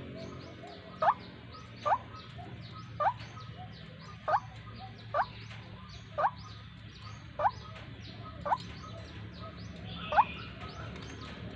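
Young white-breasted waterhen giving short, rising call notes about once a second, a bird still learning its call, over a steady low hum.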